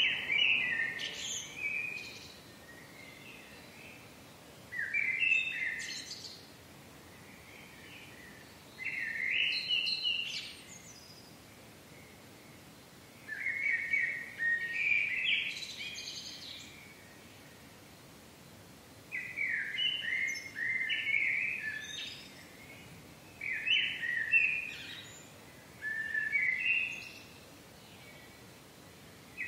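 Birdsong in short warbling phrases, about eight in all, each lasting one to three seconds with pauses of a few seconds between, over faint steady outdoor background noise.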